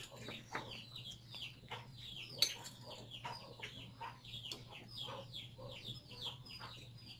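Chickens chirping and clucking: many short, faint falling calls several times a second, over a steady low hum.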